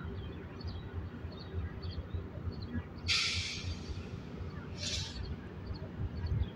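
Low rumble of an approaching Metrolink MP36 diesel locomotive, with small birds chirping. Two short hissing bursts come about three and five seconds in, the first the louder.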